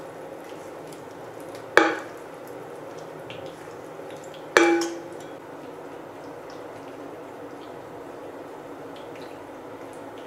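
A spoon spreading cherry pie filling, with faint wet clicks, and two sharp knocks of the spoon against a dish about two and four and a half seconds in, each ringing briefly.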